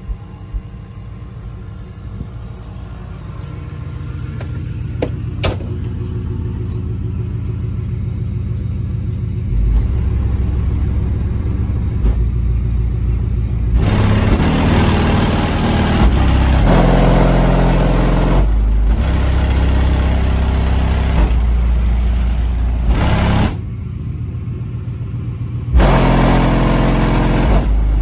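Car audio subwoofers in a ported box tuned to about 42 Hz playing bass-heavy music at high volume, heard from outside behind the closed trunk. Deep bass notes come in strongly about ten seconds in, the full, louder music from about fourteen seconds, dipping for a couple of seconds near the end before coming back.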